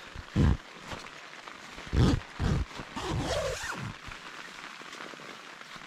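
Naturehike Mongar 2 tent door being unzipped and pulled open by hand, with three heavy handling thumps in the first few seconds.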